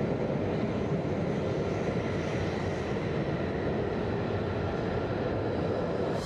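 An F-35A's F135 turbofan engine running at low taxi power. It makes a steady jet rumble and hiss with a faint high whine.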